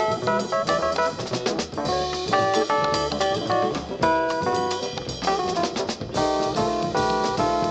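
Instrumental 1970s jazz: a guitar plays a line of changing notes over drum kit.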